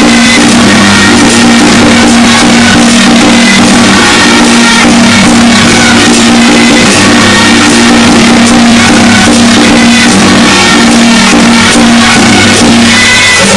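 Loud, continuous procession music accompanying a Ba Jia Jiang temple troupe: steady held pitched notes over a dense, clattering percussion beat.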